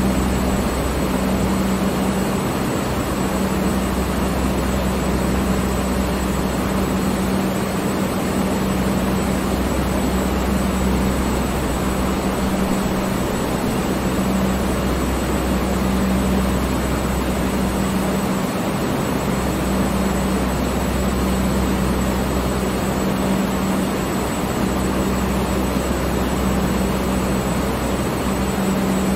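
Electric fan running steadily: a constant rush of moving air with a low motor hum underneath.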